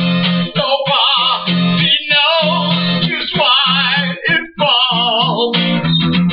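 Music: an instrumental break in an acoustic song, with guitar and a wavering lead melody line over it.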